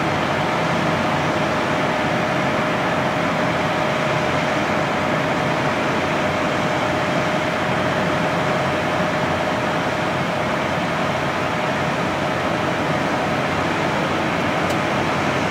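Parked fire trucks' engines running, a steady mechanical drone with a faint constant hum through it.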